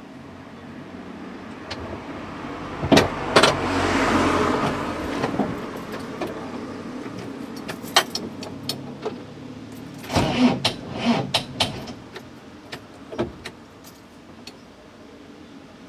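A Land Rover Series II being tried on a flat battery: two sharp clunks, then a weak starter-motor whirr for about two seconds that does not turn the engine over, followed by scattered clicks and a cluster of clunks. The battery has too little charge to crank the engine.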